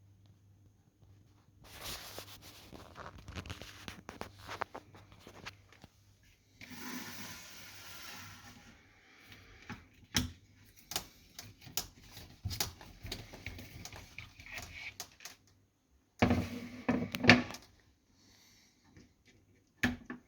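Handling noise from a fiberglass prop pistol and its leather holster: scattered clicks and knocks, a stretch of rustling about seven seconds in, and a few louder knocks around sixteen to seventeen seconds.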